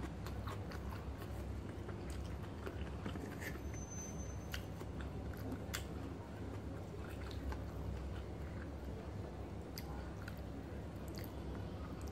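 A person chewing a mouthful of rice and side dishes, with scattered small clicks throughout, over a steady low hum.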